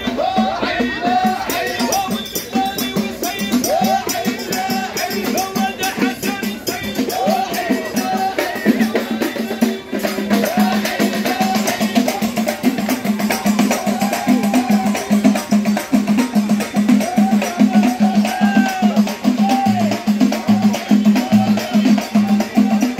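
Live Moroccan folk troupe music: drums beaten in a fast, dense rhythm under a wavering melody line and a steady low drone.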